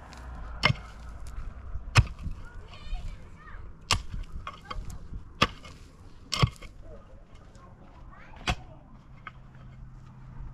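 A pickaxe striking hard, stony dry soil. There are about six sharp blows at uneven intervals of one to two seconds.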